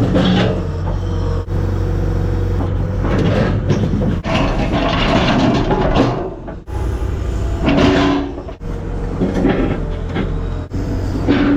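Cat excavator's engine running under work, with steady tones and rising noisy surges over it, the sound breaking off abruptly and resuming several times.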